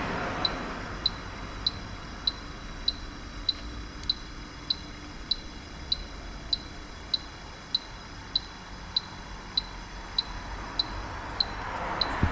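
A sharp tick repeating evenly, about one and a half times a second, over a steady hiss that swells near the end.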